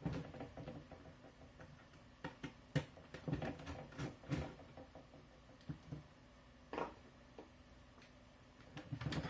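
Scattered light clicks and knocks of an HP ProBook 6570b laptop's screen panel being handled and turned over on a wooden desk, with a screwdriver set down among them.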